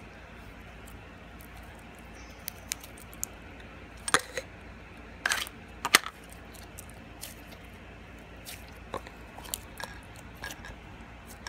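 Slime being handled and pressed into a plastic jar, with scattered small clicks and a few louder sharp knocks of the plastic, the loudest about four and six seconds in.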